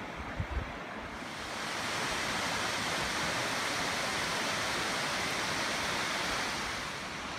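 Steady rush of river water that grows louder and brighter about a second and a half in, into the heavier splashing rush of a waterfall, then eases a little near the end. A few low thuds near the start.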